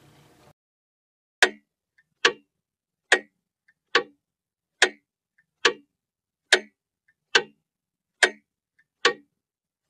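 Mechanical clock ticking: evenly spaced sharp ticks a little faster than one a second, starting about a second and a half in, with very faint small clicks between some of them.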